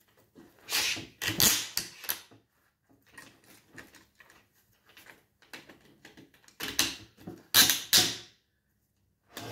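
Handling noise from an xSPINE support vest being adjusted by hand: rubbing and knocking of its padded shoulder pieces and arms. There are louder bursts about a second in and again near the end, with a few faint clicks between.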